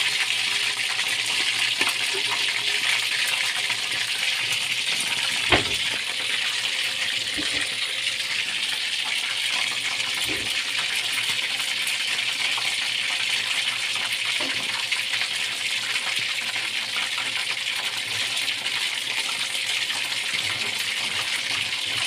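Chicken pieces deep-frying in hot oil in a wok, with a steady sizzle full of fine crackles. A single sharp knock stands out about five and a half seconds in.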